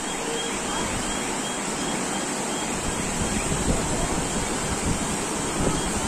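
Floodwater rushing down a street in a fast torrent: a steady, even rush of water, with wind buffeting the microphone from about the middle on.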